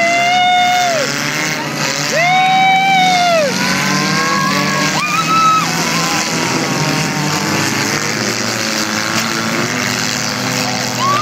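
Several small car engines revving in turn, each rev climbing quickly, holding for about a second, then dropping back, over a steady rumble of other engines.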